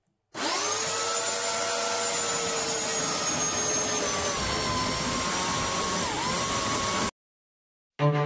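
High-speed rotary carving tool (Dremel type) starting up with a quick rising whine, then running at a steady high whine whose pitch drifts a little lower, with a brief dip about six seconds in. The sound cuts off suddenly about seven seconds in.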